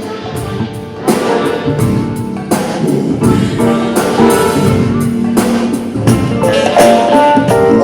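Live band playing an instrumental stretch of a soul song, with a drum kit keeping a steady beat under guitar and other sustained instruments, and no vocals.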